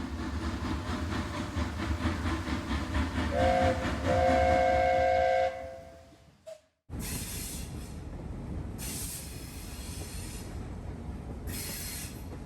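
A train running with a low rhythmic rumble, its horn sounding a short blast and then a longer one, a chord of several tones. After a brief drop to silence, the train runs on with a steady rumble and three short bursts of high hiss.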